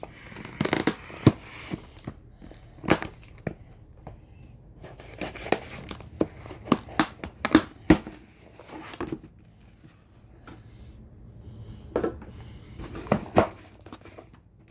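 Cardboard shipping box being opened with a folding knife: packing tape slit and torn, flaps pulled back and packing paper crinkling, in irregular rustles and sharp snaps with a quieter stretch a little past the middle.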